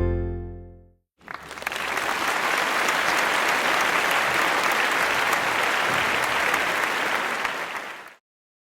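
The last of an acoustic guitar strum dies away, then a crowd applauds steadily for about seven seconds and cuts off suddenly.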